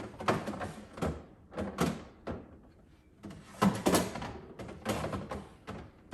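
Items being moved around inside a refrigerator: a series of knocks and clatters as containers are set on the shelves and door bins, the loudest about halfway through.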